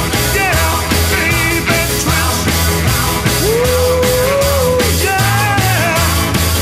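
Upbeat rock and roll music with a steady drum beat and a lead melody; the melody holds one long note about halfway through.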